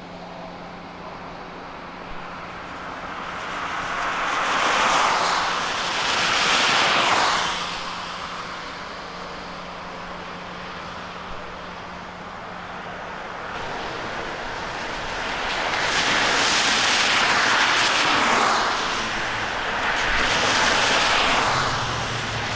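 Several cars passing one after another on a flooded freeway, their tyres spraying through water on the road; each pass swells and fades over a few seconds.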